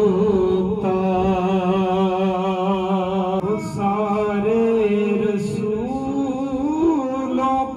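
A man reciting a naat, sung unaccompanied into a handheld microphone: long, drawn-out held notes that slowly bend in pitch, with a short break about halfway through.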